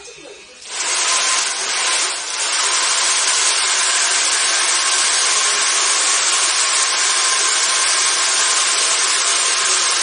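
Handheld hair dryer switched on about a second in, blowing steadily and loudly at close range, with a steady whine under the rush of air.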